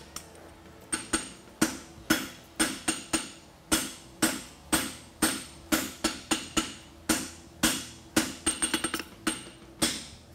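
Hand hammer striking red-hot 5/8-inch square steel bar on a steel anvil, about three blows a second from about a second in, each blow ringing briefly. About eight and a half seconds in comes a quick run of lighter taps. This is a farrier forging the end of the bar for a horseshoe.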